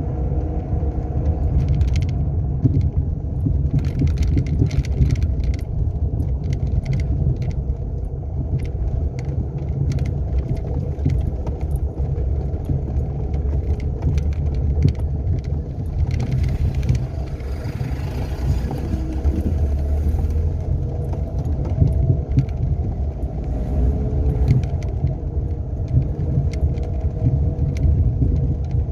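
Renault Sandero driving, with a steady engine and road rumble and light rattles. Through it runs the bearing noise the owner hears growing louder, a sign of a failing alternator bearing, which the workshop later confirms.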